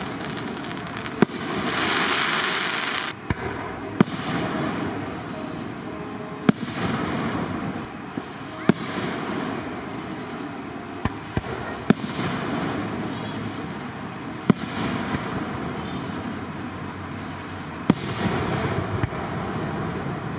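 Aerial fireworks shells bursting one after another: a sharp bang about every two to three seconds, each followed by a rolling echo, with a few smaller pops between.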